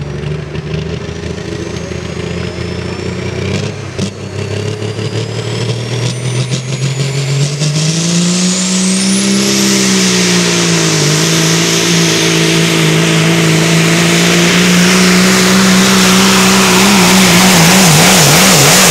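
Pro Stock semi truck's diesel engine revving up and pulling hard under load against the weight sled. Its pitch climbs, dips briefly, then holds high and gets steadily louder, with a high whine rising and then holding alongside it. Near the end the engine note wavers up and down.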